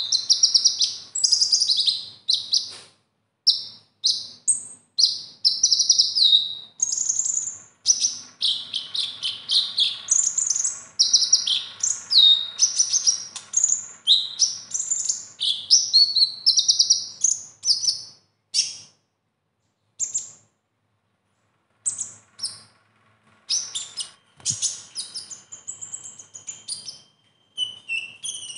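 Male van Hasselt's sunbird (kolibri ninja) singing: rapid runs of high, thin chirps and trills broken by short pauses, a song filled with phrases copied from other birds. A few seconds before the end a steady high note is held under the chirps.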